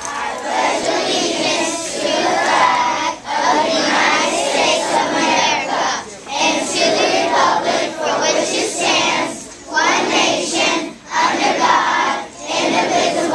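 A large group of children singing together in unison, in phrases with short breaks.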